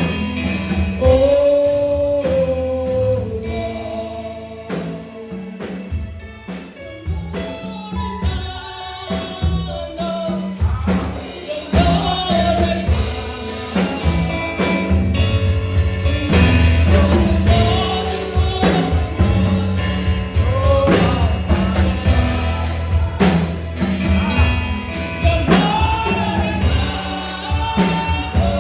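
Gospel praise music: voices singing a melody over a band with a strong bass line and drums.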